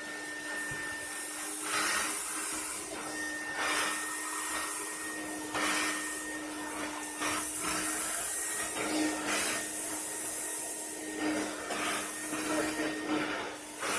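Roboclean vacuum cleaner running as a wet spot cleaner on carpet: a steady motor hum with a surge of suction noise about every two seconds as it draws up water.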